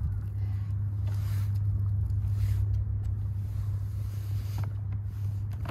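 Engine running at a steady speed, a constant low drone, with a few brief washes of hiss over it.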